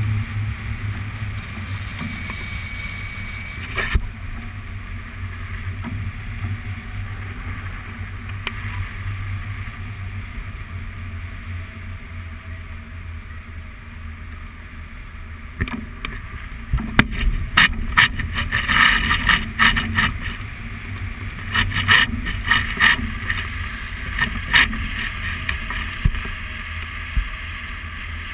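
Wind rushing over the microphone of a camera on a hang glider in flight: a steady low rumble. In the second half it breaks into clusters of sharp gusty buffeting.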